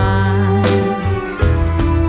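Background song in an instrumental stretch: held notes over bass with a steady beat, no sung words.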